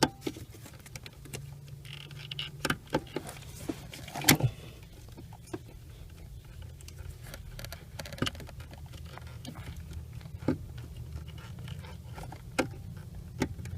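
Scattered metallic clicks, taps and light scrapes of hand tools working a brake light switch into its bracket at the brake pedal, with one louder knock about four seconds in, over a steady low hum.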